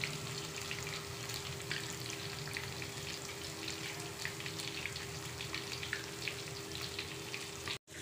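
Besan-coated chicken pieces deep-frying in hot oil in a kadai over a low-to-medium flame: a steady sizzle with many small crackles and pops, and a faint steady hum underneath. The sound cuts out for a moment near the end.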